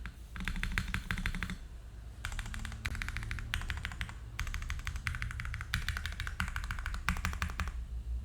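Fast typing on a Neo60 Core mechanical keyboard with BBN Tactile switches lubed with Krytox 205g0, a PP plate and Cherry-profile keycaps: a rapid run of key clicks, a short pause about one and a half seconds in, then more continuous typing that stops shortly before the end.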